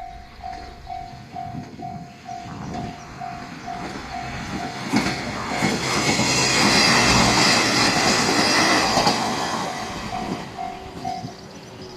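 Level crossing warning bell ringing in an even repeating ding, about two strokes a second, as KiHa 40 and KiHa 47 diesel railcars pass over the crossing. The train's engine and wheels swell up to the loudest point about halfway through and fade again. The bell stops near the end.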